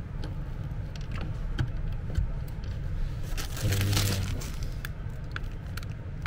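Small plastic clicks and knocks of cable connectors and cords being handled on a workbench, with a brief rustling scrape about four seconds in as the plastic-wrapped hand controller is picked up.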